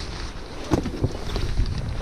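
Wind rumbling on the microphone, with a few short knocks, the loudest about three-quarters of a second in.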